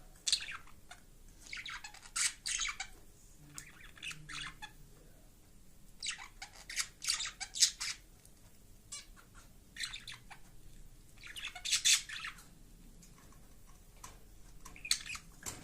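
Budgerigar singing: short bursts of high chirps and chatter, coming in clusters a second or two apart.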